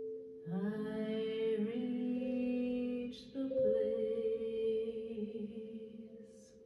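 Wordless singing voice holding long, sustained notes in two phrases, with a brief break in the middle, over a steady drone of two held tones; the voice fades out near the end.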